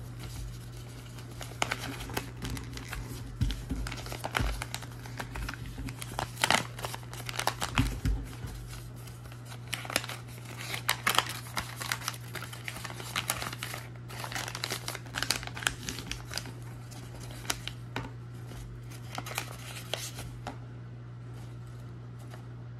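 Paper being folded and creased by hand into a paper boat, then pulled open into shape: irregular rustling and crinkling with sharp crackles as folds are pressed, over a steady low hum. The paper sounds die away about twenty seconds in.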